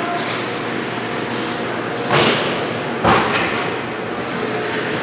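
Two sharp knocks about a second apart, ringing out in the rink: a hockey puck cracking off sticks and the boards, over a steady background hum.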